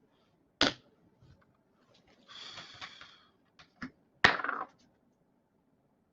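A few sharp clicks: one about half a second in, two faint ticks near the four-second mark and a louder click just after, with a short hissing rustle about two and a half seconds in.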